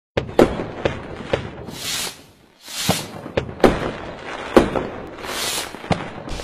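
Fireworks sound effect: a string of sharp bangs and cracks, roughly nine, with hissing whooshes between them.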